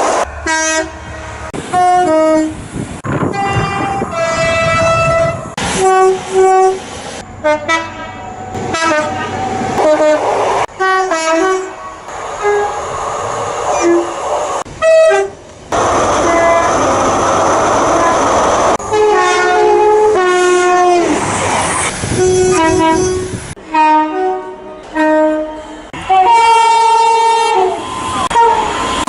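A rapid string of two-tone train horns from several different British diesel and electric trains, each sounding short blasts that step between a high and a low note, with abrupt cuts from one train to the next. About halfway through comes a few seconds of a train running past without sounding its horn.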